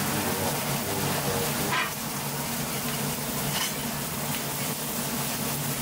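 Steady city street noise: a continuous hiss of passing traffic with a faint low hum of engines underneath.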